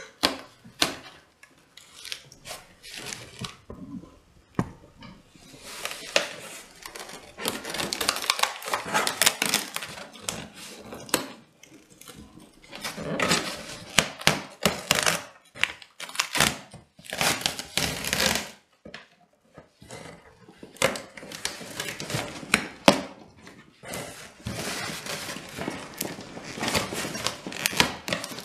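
Packing tape being picked at with fingernails and pulled off a cardboard shipping box: repeated stretches of scratching and ripping a second or two long, with scattered knocks on the cardboard.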